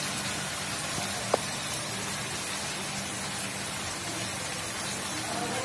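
Tiger prawns sizzling in hot oil in a frying pan: a steady, even hiss, with a single short click about a second and a half in.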